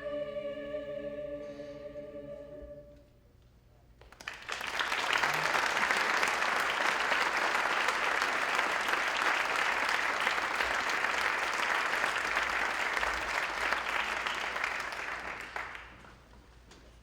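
A choir holds its final chord, which is cut off about three seconds in. After a short pause the audience applauds for about twelve seconds, and the applause dies away near the end.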